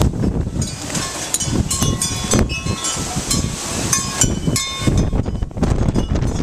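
Hurricane-force gusting wind buffeting the microphone in a heavy rumble, with many irregular sharp ticks and clicks over it.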